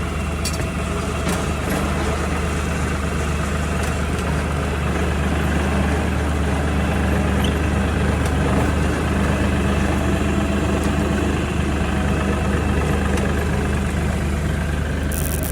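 Tractor engine idling steadily as it warms up, a constant low hum with a few faint ticks over it.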